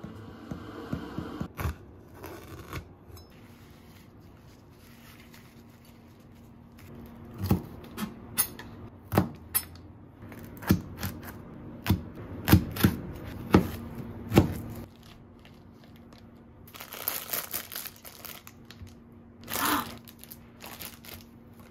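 Kitchen knife striking a cutting board while slicing shishito peppers: a dozen or so sharp, uneven knocks in the middle. Near the end, a plastic food package crinkles and tears twice as it is opened.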